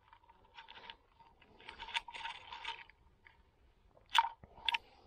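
Close handling noise as a small perch is unhooked by hand: soft crunching and rustling of fingers on the fish and the soft-plastic lure, with two sharp clicks about four seconds in.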